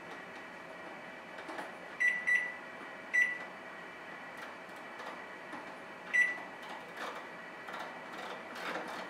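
Microwave oven's keypad beeping as its buttons are pressed to set the timer: four short high beeps, two close together about two seconds in, one a second later and one near the six-second mark, with soft clicks of handling in between. This is a microwave that had refused to start.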